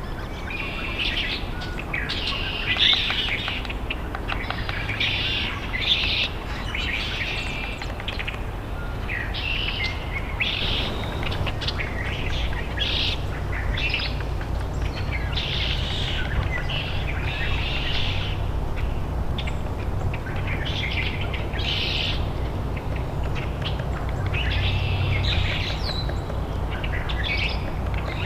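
Wild birds chirping and singing in short, repeated phrases, over a steady low rumble.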